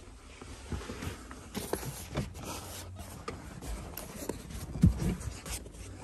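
Rustling and rubbing handling noise as a seatbelt strap and its hardware are moved about, with scattered small clicks and one louder thump about five seconds in.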